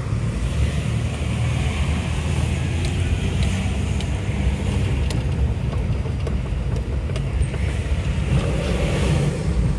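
Steady low rumble of a car's engine and road noise, heard from inside the cabin while driving in traffic.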